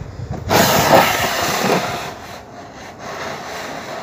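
A cloth being scrubbed by hand across floor tiles close by, making a swishing rub. It is loudest from about half a second to two seconds in, then goes on more softly.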